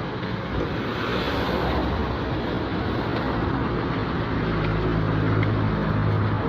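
Road traffic: motor vehicles running past close by, with the hum of an engine growing louder in the second half.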